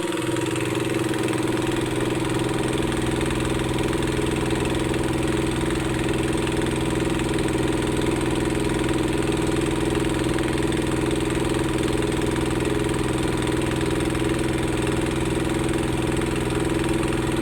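An engine idling steadily, with an even hum that does not change speed.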